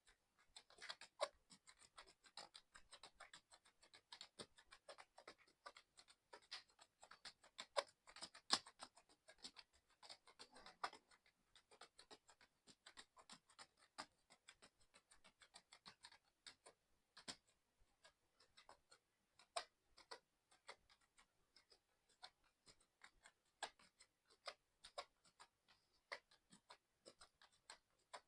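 Mechanical keyboard being typed on fast and continuously: a faint, unbroken stream of irregular keystroke clicks, several a second.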